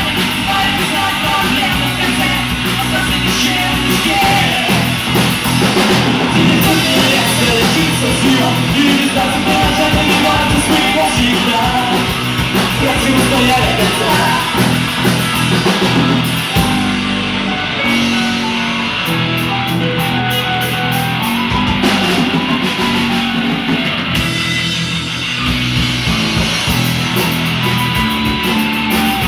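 A rock band playing live, with electric guitars, drum kit and a singer.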